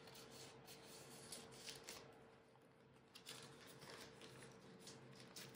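Faint rustling and light ticks of photocards being handled and slid into plastic binder sleeves, over a faint steady hum.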